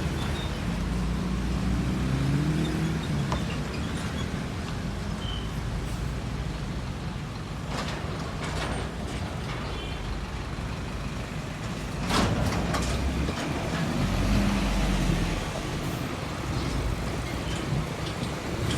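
Heavy trucks passing on a road: steady traffic noise with diesel engine hum, an engine note rising in the first few seconds. Short sharp sounds come near eight and twelve seconds, and a louder vehicle passes from about twelve to fifteen seconds in.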